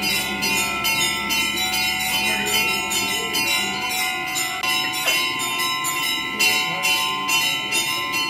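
Temple bells ringing in a fast, even rhythm of about three strikes a second, each stroke ringing on over the next, as the lamp is waved for the aarti.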